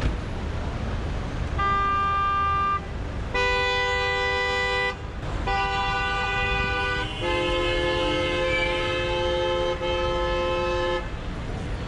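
Car horns honking in city traffic: four long, steady blasts of differing pitch, the last held for nearly four seconds, over a low road rumble.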